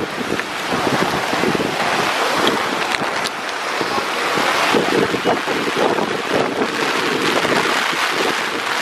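Heavy monsoon rain falling steadily: a dense, even hiss with no break.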